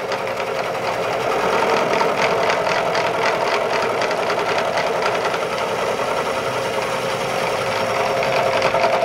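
Milling machine taking a light five-thousandths facing cut: the spindle runs with a steady hum while the cutter makes a rapid, even ticking as it chips the metal.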